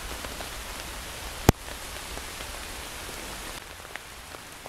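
Steady rain falling on the woodland foliage, an even pitter-patter, with one sharp tap about a second and a half in.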